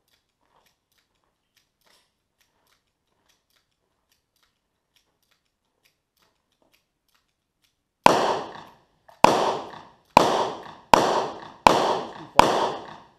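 Six handgun shots fired in quick succession, each a sharp crack with a short ringing tail, starting about eight seconds in after near silence.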